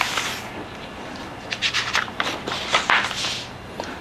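A sheet of paper being folded in half and its crease pressed and run down with the fingers against a tabletop. Paper rustles and rubs, with a cluster of short, sharp scraping strokes in the middle.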